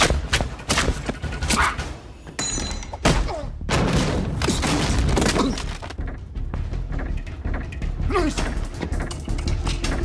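Thuds and blows from a hand-to-hand fight, a rapid run of body impacts and crashes, over a tense film score.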